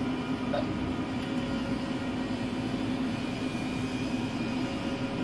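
Steady mechanical hum with one constant low tone inside a tower crane's operator cab. It does not change or stop.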